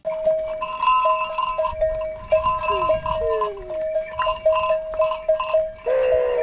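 Neck bells on a herd of zebu cattle ringing steadily as the herd walks, each bell struck three or four times a second. A couple of short falling calls sound near the middle, and a deeper call near the end.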